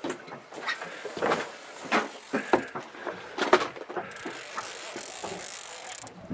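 Irregular knocks and clatter, like tackle and gear being handled on a boat deck, the sharpest knock about three and a half seconds in.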